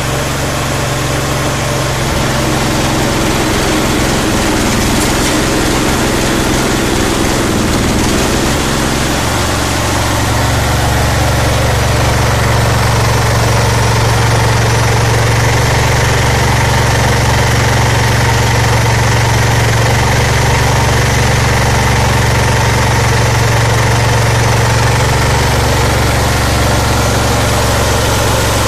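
Small single-cylinder petrol–LPG combo engine, fed from an LPG cylinder through a converter kit, running steadily with a low hum. About ten seconds in the hum grows stronger and steadier, and the sound gets a little louder.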